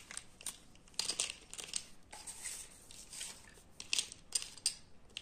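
Plastic felt-tip marker pens gathered up in the hand, with irregular light clicks and rustles as they knock against each other and brush the paper.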